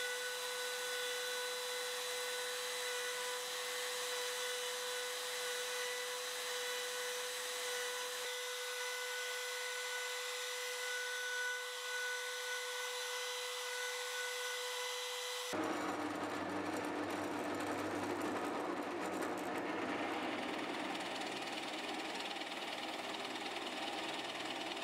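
Trim router in a Beall threader jig running with a steady high whine while a wooden dowel is fed through it to cut a thread. About fifteen seconds in the whine cuts off suddenly, replaced by a drill press boring into a wooden board with a Forstner bit, a rougher, noisier sound.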